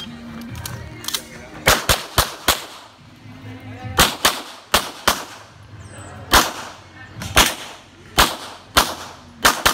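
A string of about a dozen gunshots fired at an uneven pace, some close together, each followed by a short echo.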